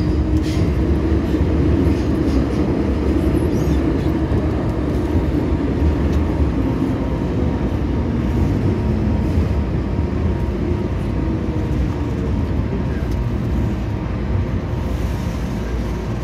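MTR M-Train electric multiple unit heard from inside the car as it runs into a station and slows, a steady rumble with a low hum that eases slightly as it brakes.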